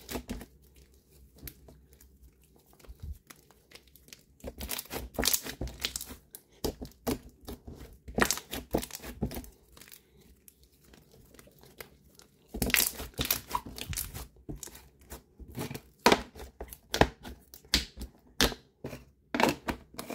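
Thick, fluffy slime being squeezed, stretched and poked by hand, giving bursts of crackling, crinkly clicks with quieter pauses between them.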